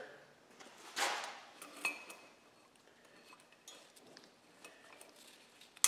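Thin tie wire being cut and pulled out from around a Model T Ford's transmission triple gears: light metallic clinks and scrapes, with a short ring about two seconds in and a sharp click near the end.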